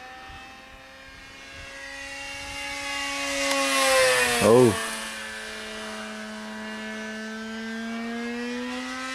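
Radio-controlled 3D-printed Bf 109 F model plane making a fast flyby: its motor and propeller whine grows louder to a peak about four seconds in, then drops a little in pitch and level as it passes and goes on steadily.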